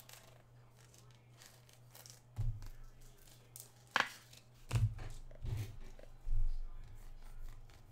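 Hands handling trading cards and packs on a tabletop: a few soft knocks, with a sharp click about halfway through, over a low steady hum.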